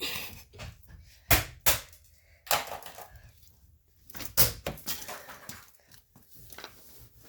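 Irregular sharp knocks and cracks of plastic being struck and broken out of a Smart car's door around the factory door speaker, several blows a second or more apart.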